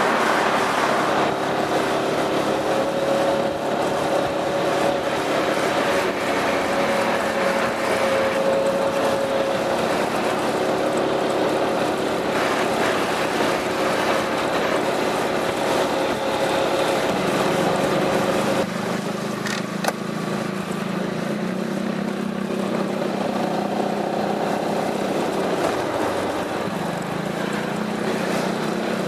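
Piaggio MP3 400's single-cylinder engine running steadily through an Akrapovic exhaust. About two-thirds of the way through, the note changes suddenly to a lower-pitched, quieter running sound, and a single click follows shortly after.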